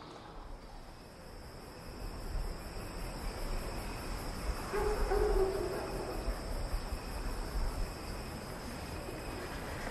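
An owl hooting once, a short two-part hoot about five seconds in, over a low steady night-time rumble.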